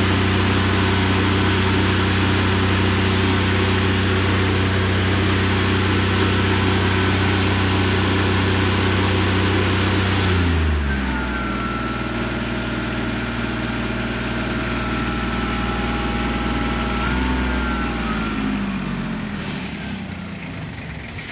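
Miller Trailblazer 302 Diesel welder-generator's Kubota three-cylinder diesel engine running at a steady speed, with a high whine above it. About halfway it drops to a lower, slower speed, briefly picks up again, then slows and fades near the end.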